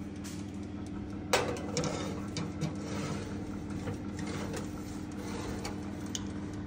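A metal baking tray carrying a cake ring is slid onto the wire rack of an electric oven, rattling and clicking against the rack, with a sharp clank about a second and a half in. A steady electrical hum runs underneath.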